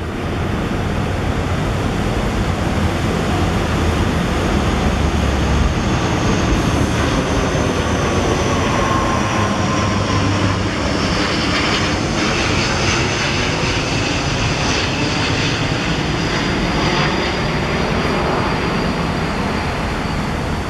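Airplane passing overhead: a steady rumbling engine noise with a high whine that falls slowly in pitch.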